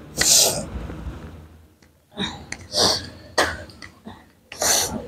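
People sneezing and sniffing while trying to force sneezes. There are about five short, noisy bursts: the loudest comes at the start and the rest are spread over the next few seconds.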